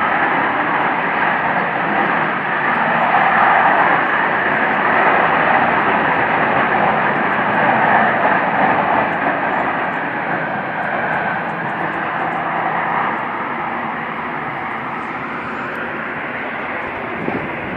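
A loud, steady noise from overhead that sounds like jets flying overhead. It swells a little in the first half and eases slightly later on.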